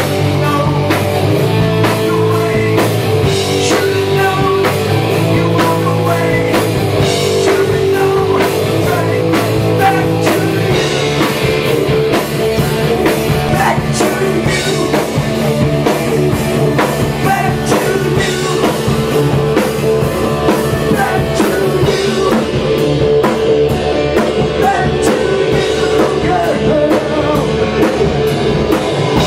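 Hard rock band playing: distorted electric guitar and drum kit, with a man singing.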